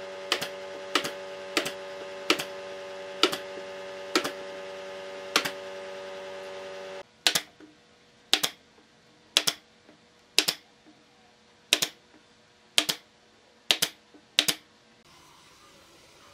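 Pneumatic nail gun firing nails into pine boards, one sharp shot about every second, some fifteen in all. A steady machine hum runs underneath for the first seven seconds and then cuts off, while the shots carry on.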